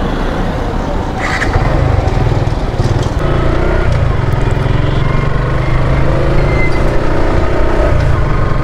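Suzuki Gixxer's single-cylinder engine running as the motorcycle rides along a road; its note grows stronger about a second and a half in as the bike gets under way. Wind noise on the microphone runs underneath.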